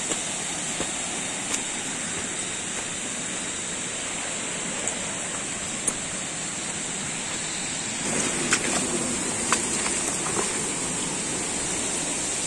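Steady rush of a forest stream, growing louder about eight seconds in, under a constant high hiss, with a few scattered footsteps on dirt and stones.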